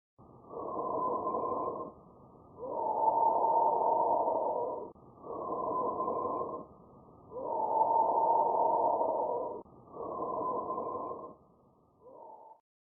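Normal lung breath sounds heard through a stethoscope: a steady breathing hiss that comes in regular cycles. A shorter, softer phase alternates with a longer, louder one, about two and a half breaths in all.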